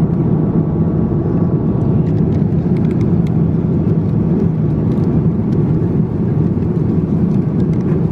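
Steady low drone of a Boeing 787-9 airliner cabin in flight, the engine and airflow noise heard from an economy seat. From about two seconds in there are faint scattered clicks and crinkles of plastic packaging being handled on the meal tray.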